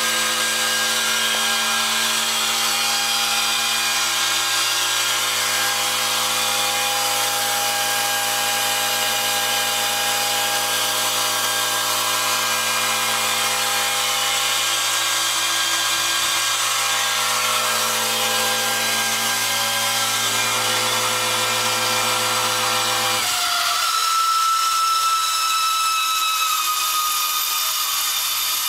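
Central air-conditioning condenser unit making a loud, high-pitched screeching noise over a steady hum. About 23 seconds in, the hum cuts off abruptly while the screeching tones carry on, one of them sliding slowly lower. This noise comes before the unit shuts itself off and stops cooling.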